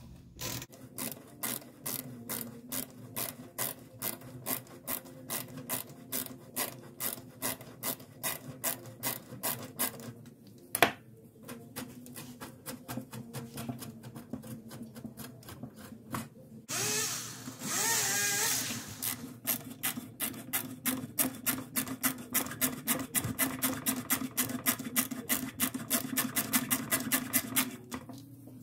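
Hand tool working a rusted nut and screw in the wooden frame of an antique buck saw: a steady run of short scraping clicks about three a second, quickening in the second half. A single sharp knock about eleven seconds in, and a longer grating rasp with a wavering pitch about two-thirds through.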